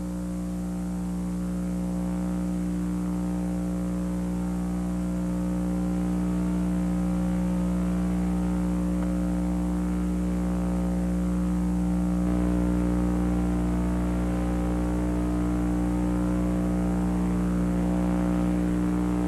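A steady low hum made of several fixed tones, unchanging in pitch throughout.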